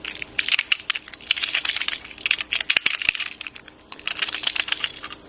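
A toy's push-button sound box shorting out: its speaker crackling in rapid, irregular clicks, with a few sharper pops about three seconds in.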